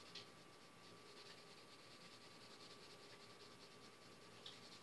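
Faint scratching of a 2B graphite pencil on drawing paper, in quick, short strokes repeating several times a second.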